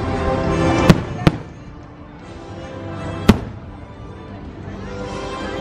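Aerial fireworks shells bursting: three sharp bangs, two close together about a second in and one more near the middle, with music playing underneath.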